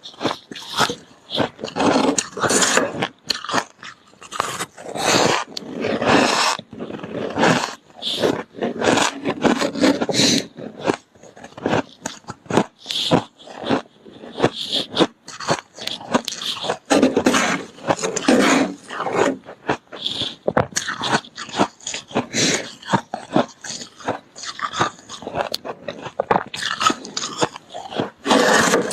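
Freezer frost being scooped from a plastic box and crunched between the teeth: clusters of crisp crunching and scraping that come and go in bursts.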